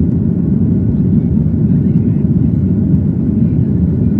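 Steady low rumble of a Boeing 737-900's CFM56 engines and airflow, heard inside the passenger cabin.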